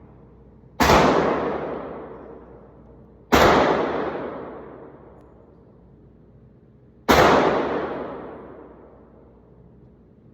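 Three single shots from a .45 ACP Glock 30 pistol, slowly paced a few seconds apart, each a sharp crack that fades away over about two seconds.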